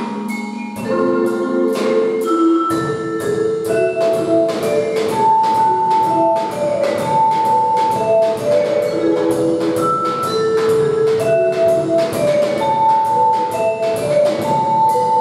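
Live band of drum kit, mallet percussion and keyboard playing an instrumental piece: the drums keep a steady beat under a melody of held notes, and the full band comes in about a second in.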